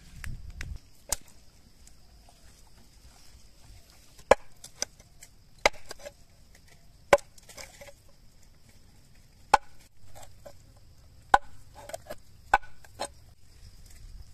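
Large knife chopping into a whole raw chicken on a wooden board: sharp single chops every second or two, some in quick pairs, making the cuts in the bird.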